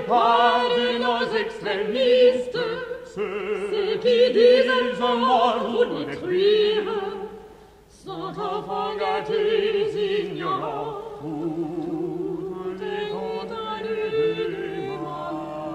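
Contemporary classical vocal music: several operatic voices singing together with wide vibrato. It breaks off briefly about eight seconds in, then resumes more softly with the voices layered.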